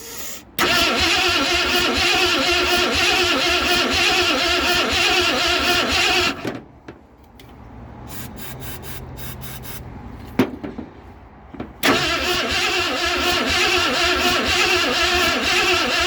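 Starter motor cranking the 1973 Ford Falcon's 351 Cleveland V8 with an even pulsing rhythm for about six seconds without it catching. After a pause and a sharp click, it cranks again for several more seconds. The engine does not fire, a no-start that the owner traces to the ignition (points and distributor cap).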